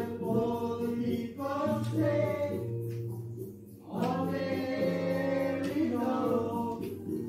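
Karaoke singing with backing music from the neighbours next door, heard through the walls of the room. A sung phrase breaks off about three seconds in and a new one starts a second later.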